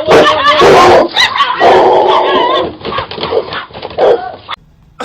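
A dog barking loudly, almost without pause, cutting off abruptly near the end.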